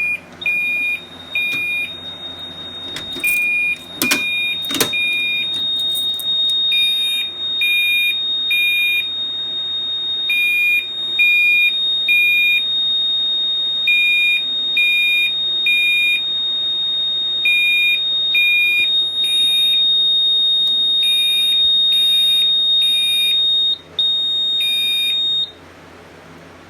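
Gentex Commander 3 horn/strobe sounding its 2400 Hz horn in code 3 (temporal-three) pattern, three beeps then a pause, repeating about every three and a half seconds, after a Firelite BD12 pull station has been pulled. A steady higher-pitched tone runs under the beeps, a few sharp clicks come in the first seconds, and everything cuts off abruptly near the end.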